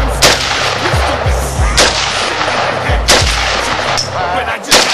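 AK-47 rifle in 7.62×39 firing four single shots, roughly a second and a half apart.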